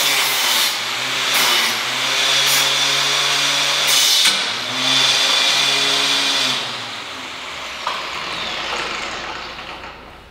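Angle grinder running at full speed, its abrasive disc grinding against a metal plate in several bursts of harsh scraping noise. About six and a half seconds in it is switched off and spins down with a falling whine.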